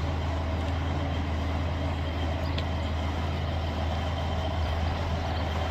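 Diesel engine of a steam-outline miniature railway locomotive idling, a steady low hum, with a brief high squeak about two and a half seconds in.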